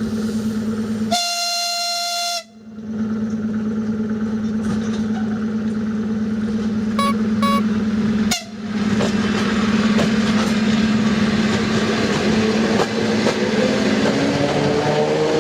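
A train sounds one loud, high-pitched horn blast of about a second over the steady hum of the locomotive. Two short high toots follow a few seconds later. Near the end a whine rises in pitch over a growing rumble as the train gets under way.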